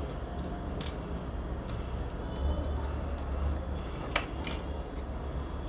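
Low steady hum with a few faint sharp clicks and taps, small tools and a phone board being handled on a repair bench.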